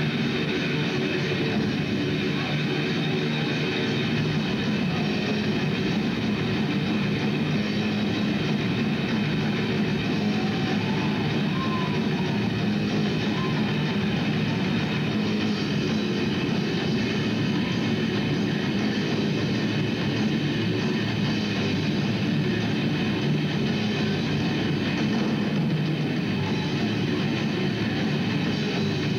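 Heavy metal band playing live: distorted electric guitars, bass guitar and drums in a dense, unbroken wall of sound.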